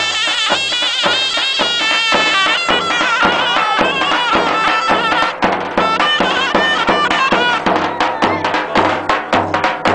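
Davul and zurna playing a folk dance tune: a shrill, wavering double-reed melody over steady, evenly spaced bass-drum beats. The drum strikes come through more strongly from about halfway.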